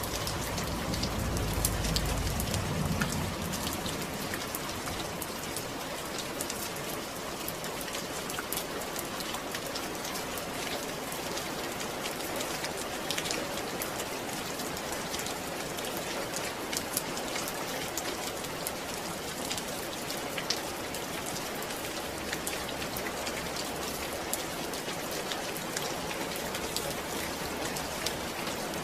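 Steady rain falling, an even hiss with many separate drop hits throughout, and a low rumble under it in the first few seconds.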